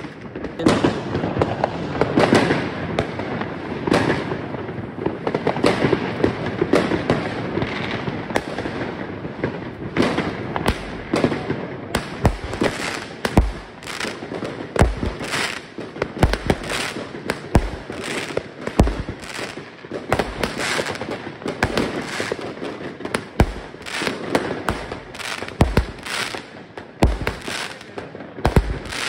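A dense, continuous barrage of New Year fireworks: rapid sharp bangs and crackling from rockets and firecrackers going off all around. From about twelve seconds in, deeper booms recur among them every second or two.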